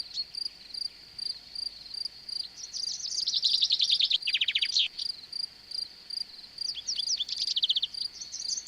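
Songbirds singing in bursts of rapid, high trills over a steady, rhythmic high chirping of crickets.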